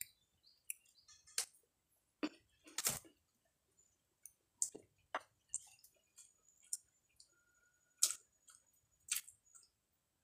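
A person eating young jengkol beans: irregular short clicks and crunches from chewing and from fingers handling and peeling the beans' skins, about a dozen sounds, the loudest about three seconds in.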